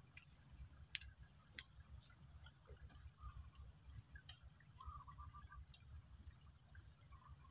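Near silence: a faint low rumble with a few scattered soft clicks and drip-like ticks.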